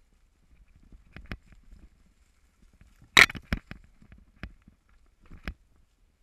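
Mountain bike rattling down a rough dirt singletrack: scattered clicks and knocks from the bike as the wheels hit bumps, the loudest clack about three seconds in, over a low rumble of tyres on the ground.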